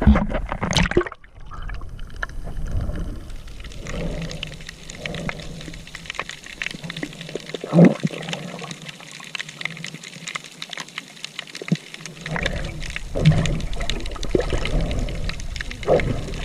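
Sea water sloshing and gurgling close to the microphone, with irregular surges.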